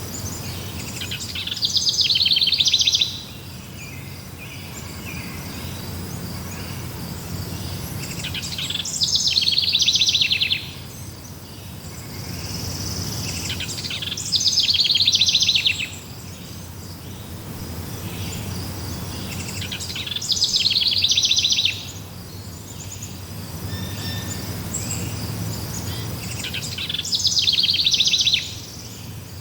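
A songbird repeating the same rapid, high-pitched song phrase five times, about every six seconds, each phrase lasting roughly two seconds. A faint steady high buzz and a low rumble run underneath.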